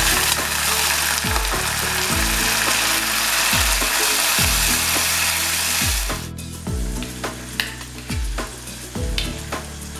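Water poured into a pan of hot oil tempered with mustard seeds, cumin and green chillies, sizzling loudly, then cutting off abruptly about six seconds in.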